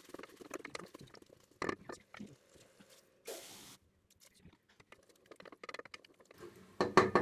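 A spatula stirring diced potatoes in a pot, with soft wet squelching and small clicks against the pot. A little over three seconds in, water splashes briefly into the pot from a jug; sharper knocks of the spatula on the pot come near the end.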